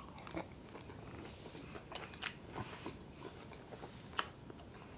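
A person chewing a mouthful of frosted corn flakes and marshmallows in milk, the flakes gone soggy. It comes through as faint, irregular small crunches and mouth clicks, the sharpest a little past four seconds in.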